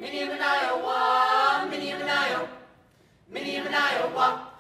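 Mixed choir singing unaccompanied: a phrase of about two and a half seconds, a short pause, then another phrase that ends just before the close.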